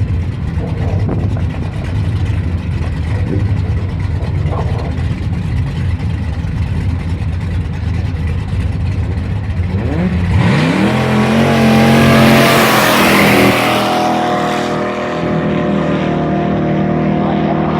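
Drag-race car engine rumbling at the start line, then launching about ten seconds in. The engine note climbs sharply with the revs and is loudest a couple of seconds later, then holds a steadier note as the car runs away down the strip.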